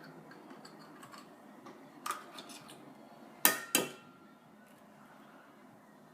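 Kitchen dishes clinking: a few light clicks about two seconds in, then two sharp knocks on a bowl a third of a second apart that ring briefly.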